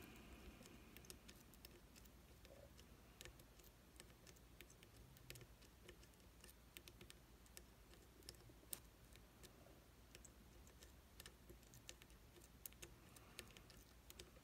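Faint, irregular small clicks of a pick working the hourglass-shaped pins of an IZIS pump lock held under heavy tension.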